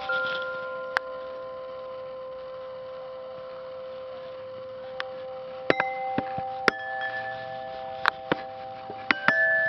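Tubular wind chime ringing: a chord of long, lingering tones slowly fades, then from about six seconds in the tubes are knocked several times in quick succession, setting fresh notes ringing.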